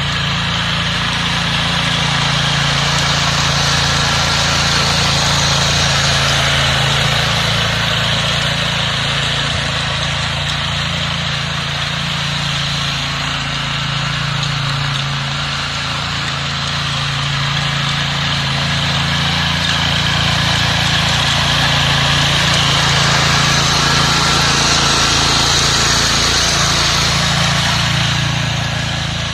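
Small engine of a walk-behind power tiller running steadily under load while its rotary tines churn through dry soil. It makes a constant drone with a broad gritty hiss, swelling a little louder at times.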